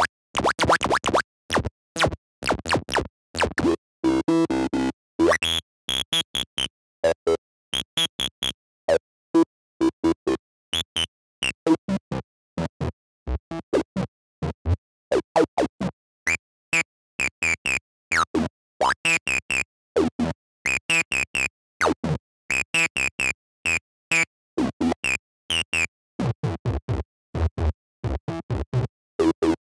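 Electronic acid-style synth music: short, stuttering notes in quick chopped bursts, with a resonant filter sweeping up and down.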